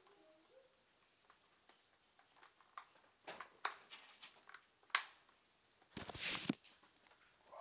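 Handling noise from a hand-held camera being moved about: a few scattered clicks and knocks, then a louder half-second rustle about six seconds in.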